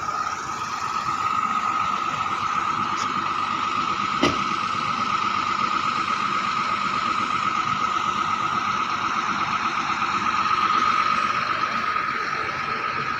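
Vehicle engine running steadily with a high, even whine while the air-conditioning refrigerant (freon) is being topped up. There is one sharp click about four seconds in.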